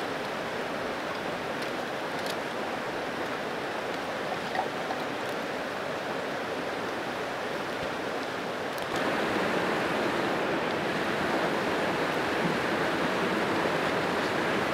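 Creek water rushing steadily, stepping up louder about nine seconds in. A couple of light clicks come as split kindling is stacked in a stone fire pit.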